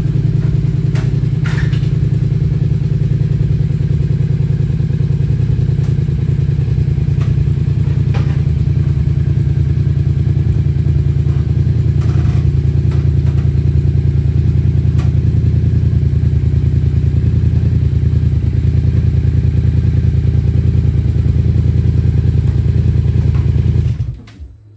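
Yamaha XSR700's 689 cc parallel-twin engine idling steadily through an aftermarket Blackwidow exhaust, then switched off about a second before the end.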